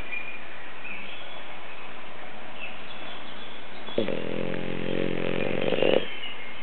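French bulldog snoring: one buzzing snore about two seconds long, starting a little past the middle, growing louder and stopping abruptly. It plays over a steady background hiss.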